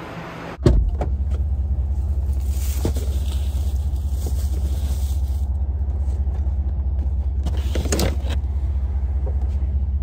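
Pickup truck's engine idling with a steady low rumble, heard from inside the cab. A few knocks and bumps come as a cardboard box is pushed in through the open door.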